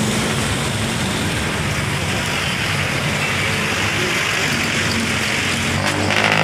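Steady vehicle noise from inside a truck cab with the window open: the diesel engine running low under a hiss of road and traffic, with a louder rush near the end as traffic passes close alongside.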